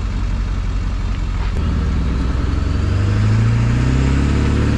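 Pickup truck engine pulling away up a boat ramp with an empty trailer: it runs low at first, then after a brief click about a second and a half in it speeds up with rising pitch and holds a steady higher note near the end.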